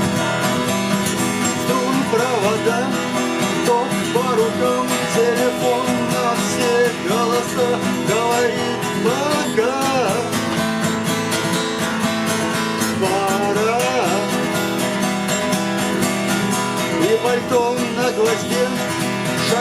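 Instrumental song introduction led by acoustic guitar, with a wavering melodic line playing over the chords.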